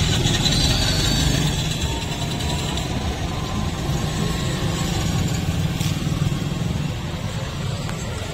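Street traffic noise with a steady low engine rumble from motor vehicles running close by.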